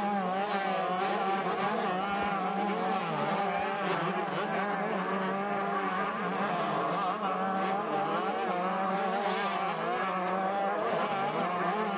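Several 125cc two-stroke motocross bikes racing, their engines revving up and down as the riders work the throttle.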